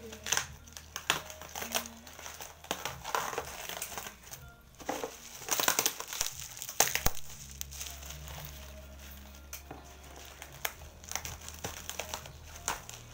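Plastic bubble wrap crinkling and crackling as it is pulled apart and cut open with scissors: irregular rustles and clicks, loudest in a cluster of bursts about halfway through.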